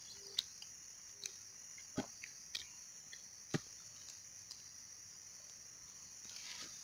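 A steady high-pitched insect drone, with a few sharp clicks and snaps scattered through the first few seconds.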